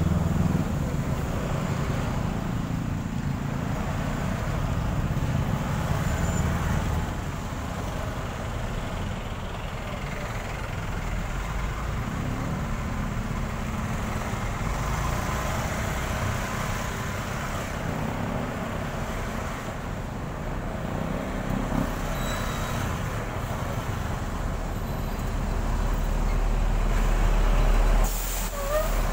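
Heavy stop-and-go traffic around a motorbike: the steady run of surrounding motorcycles, cars and larger vehicles crawling in a jam, with a low engine rumble that grows louder near the end before a short sharp sound.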